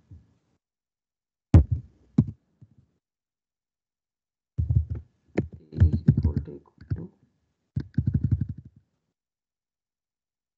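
Computer keyboard typing in short bursts: a few keystrokes about a second and a half in, then a longer run of keystrokes from about four and a half to nine seconds, each stroke a dull thunk.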